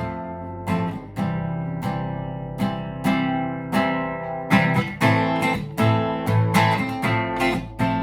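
Acoustic guitar strumming chords in an instrumental break between sung lines, with the strums coming thicker and louder about halfway through.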